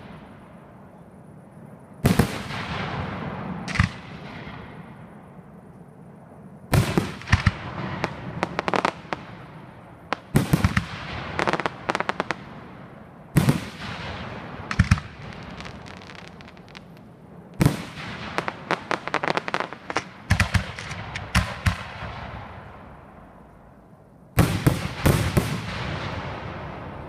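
Aerial firework shells bursting in sharp bangs, fired in volleys every few seconds, each volley trailing off as it echoes away. A dense run of quick bangs comes near the end.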